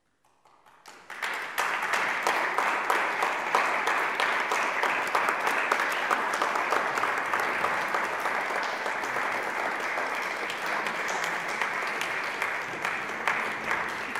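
Audience applauding: scattered claps start almost at once and build into full applause within about a second and a half, then continue steadily.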